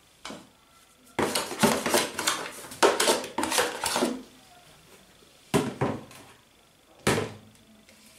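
Plastic dough scraper scraping inside a plastic bowl as risen bread dough is turned out onto a countertop: a run of short scrapes and knocks over about three seconds, then two separate knocks.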